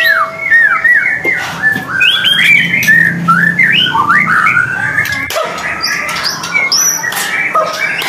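White-rumped shama (murai batu) singing: a fast run of varied whistled notes that sweep up and down, with a short break about five seconds in.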